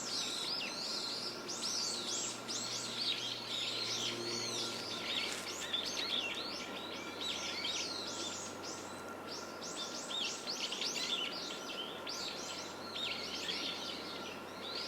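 Many small birds chirping and twittering at once in quick, overlapping calls, over a faint steady hum: woodland bird ambience.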